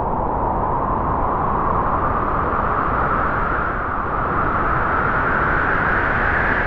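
Wind blowing in a strong, steady gust, its hiss slowly rising in pitch.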